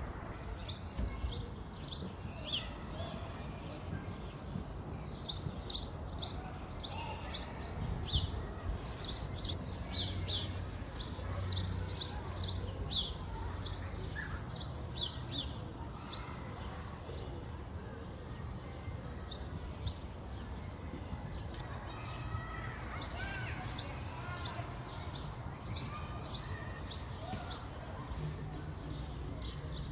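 Small birds chirping in quick runs of short high notes, busiest early on and again in the last third, over a steady low rumble of wind on the microphone. A few sharp knocks stand out in the first ten seconds.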